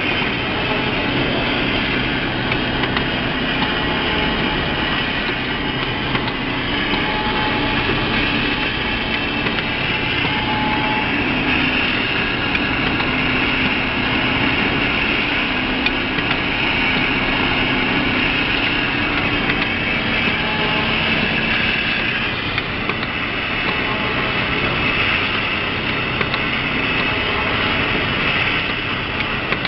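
Automatic lunch-box sealing and packing machine running: a steady mechanical clatter with a low hum and many small clicks from its drive, conveyor and sealing heads.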